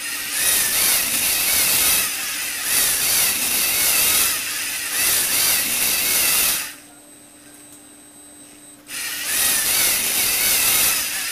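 LEGO Mindstorms NXT servo motors driving a Technic gear train, a whirring, grinding gear noise with a slightly wavering pitch. It runs for about six and a half seconds, stops for about two seconds, then starts again.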